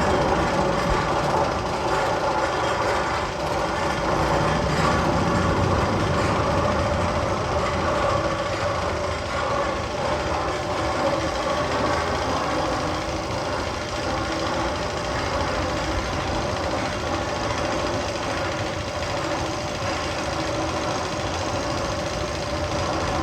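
A ride tunnel's sound effect played over loudspeakers: a steady, engine-like mechanical rumble with a few held hum tones.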